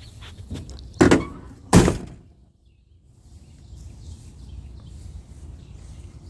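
Car door of a 1957 Chevrolet Bel Air sedan being shut: two heavy thuds a little under a second apart.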